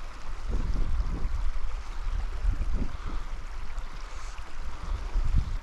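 Wind buffeting the microphone in irregular low gusts, over the steady rush of a shallow mountain stream running over gravel.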